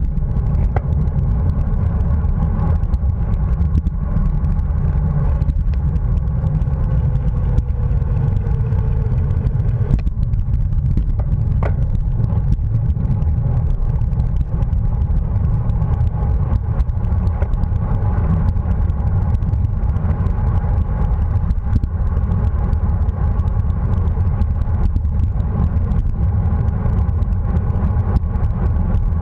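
Wind rushing over the microphone of a bike-mounted camera moving at racing speed, a loud steady rumble, with a fainter steady hum above it.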